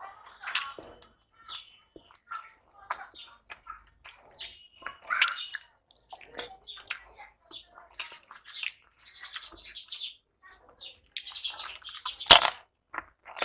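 Eating by hand: fingers squishing and mixing rice and curry on a steel plate, with wet chewing and lip smacks. Near the end comes one loud crunch as a crisp papad is bitten.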